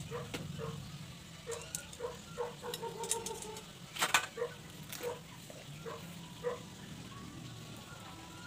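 Chickens clucking in short repeated notes, with scattered sharp clicks, the loudest a pair about four seconds in.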